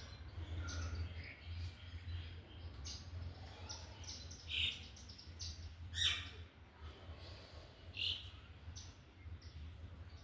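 Birds chirping: short, scattered chirps, the loudest about four and a half, six and eight seconds in, over a steady low hum.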